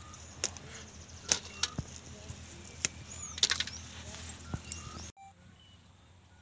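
Cluster bean (guar) pods being picked by hand: scattered sharp snaps and clicks, about a dozen over five seconds, cut off suddenly about five seconds in.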